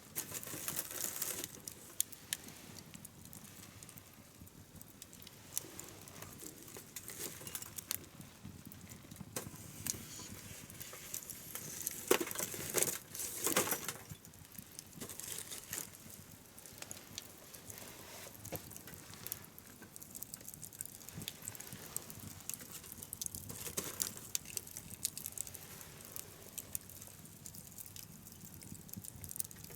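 Wood bonfire crackling and popping with irregular sharp clicks, and a louder, denser flurry of crackles about twelve seconds in.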